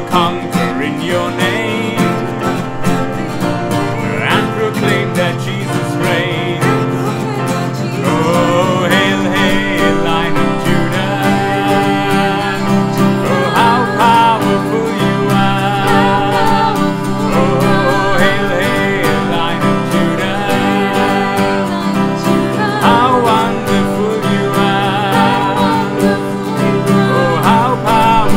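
Worship song played live on acoustic guitar and keyboard, with a man singing the melody. The playing gets fuller and a little louder about eight seconds in.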